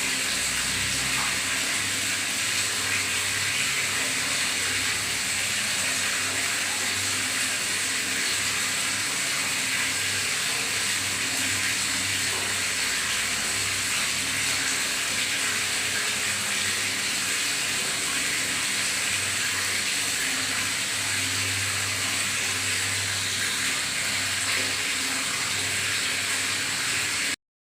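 Water running into a bathtub with a steady gurgling rush, cutting off suddenly near the end.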